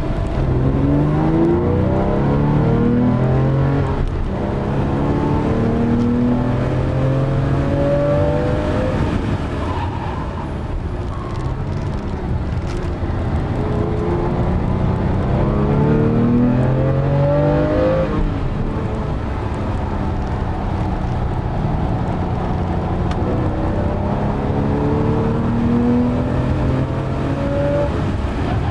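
Porsche 997 Carrera S's 3.8-litre flat-six under hard acceleration, heard from inside the cabin: the revs climb in long pulls through the gears with a quick dip at each upshift. About two-thirds through the revs fall sharply, then climb through the gears again.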